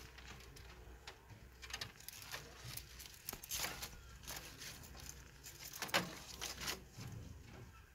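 Rabbit biting and chewing banana leaf: irregular crisp crunches and tearing clicks, in uneven clusters.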